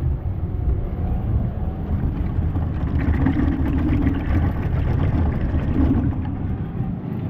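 X30 Junior two-stroke kart engine running steadily.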